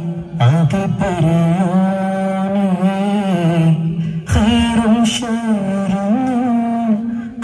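Male voices singing a duff muttu chant, a single flowing melody with short breaks between phrases about half a second in and again about four seconds in.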